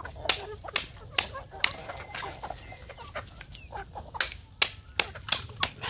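Small hammer cracking snail shells on a log in sharp knocks, about two a second, with a short lull midway. Chickens cluck close by.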